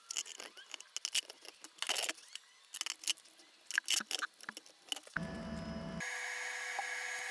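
Short clicks, taps and rustles of hands working masking tape onto a cast brake caliper and handling small tools on a bench. About five seconds in, a steady hum with a few constant tones takes over.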